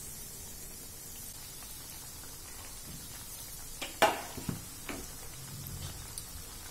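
Kothimbir vadi (coriander and gram-flour cakes) shallow-frying in oil, a faint steady sizzle, with a few sharp knocks about four seconds in.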